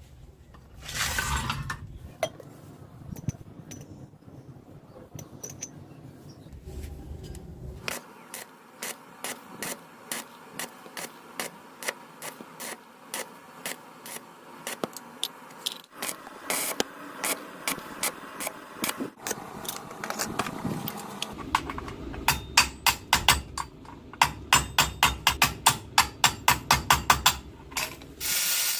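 A series of sharp taps and clicks from tool work, scattered at first, then a fast, even run of about three to four strikes a second over the last several seconds.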